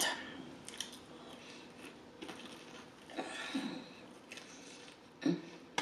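Quiet close-mic bites and chewing of a fried apple pie, with small mouth clicks and a louder bite-and-chew patch about three seconds in.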